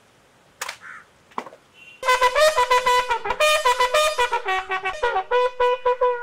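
Police bugle sounding a salute call for a guard of honour: a fast run of short tongued notes on a few pitches, beginning about two seconds in and held on a final note at the end. A couple of sharp knocks come before it in the first second and a half.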